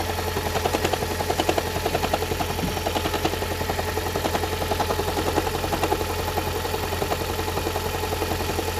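Engine idling steadily, with a rapid, even pulsing.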